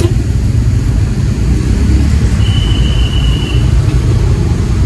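Steady low rumble of a small van's engine and road noise, heard from inside the cabin while it drives. About two and a half seconds in, a thin high tone sounds for about a second.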